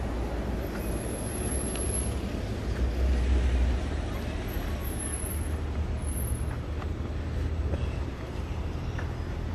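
Downtown street traffic: a steady rumble of passing vehicles, growing briefly louder about three seconds in.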